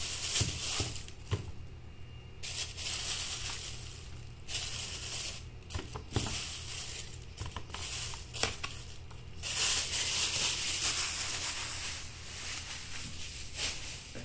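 Intermittent rustling and crinkling, like plastic or the phone being handled, in stretches of a second or two with the longest and loudest about two-thirds of the way through, over a steady low hum.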